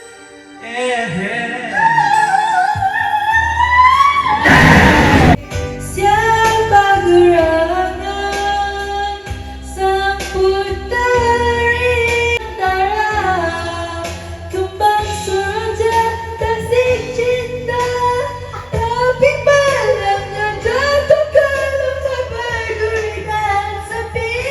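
A singer holding and bending long wordless notes over a pop ballad backing track with a steady bass beat. An early note glides upward, and a brief noisy burst comes about five seconds in.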